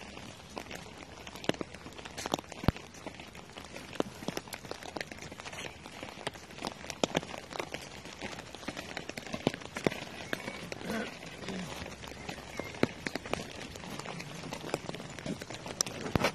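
Raindrops striking an umbrella canopy overhead: many irregular sharp taps over a steady hiss of rain.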